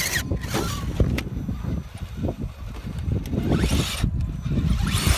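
Wind rumbling on the microphone, with an RC rock crawler's small electric motor and gears whining as it climbs granite boulders, and a couple of sharp clicks about a second in.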